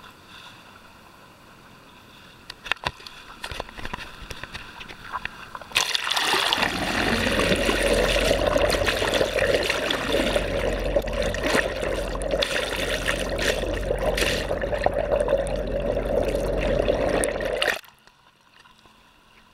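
Water against a camera microphone held at the sea surface, with small splashes and ticks, then the microphone goes under: loud muffled underwater rushing with a steady hum from about six seconds in, cutting off abruptly near the end as the camera comes back out of the water.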